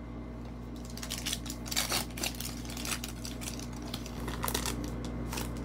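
Foil wrapper of a Panini Prizm basketball card pack crinkling as the pack and cards are handled on a desk: a run of light, irregular crinkles and clicks.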